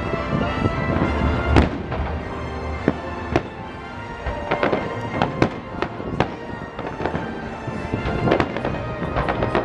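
Aerial fireworks bursting one after another in a fast, uneven string of sharp bangs and cracks, thickest in the middle of the stretch and again near the end.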